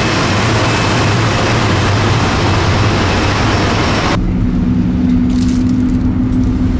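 Loud, steady jet airliner noise: an even rush with a low drone underneath. About four seconds in it cuts off abruptly to a quieter steady hum with a few low tones, like an aircraft cabin's engine and air-conditioning hum.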